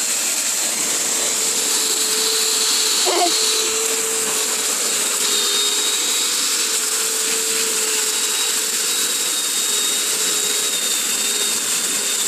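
Emerson vacuum cleaner's motor running steadily with a high whine over a rushing hiss.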